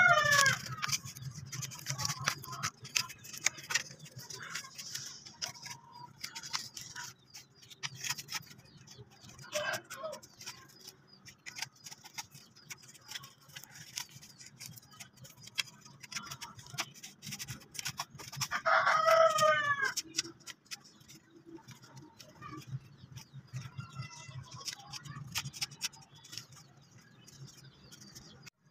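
Dry soil in a clay flowerpot being scraped and dug by hand and with a stick: many short scrapes and taps. A rooster crows loudly about two-thirds of the way in, one long call that rises and falls, with shorter calls at the start and about ten seconds in.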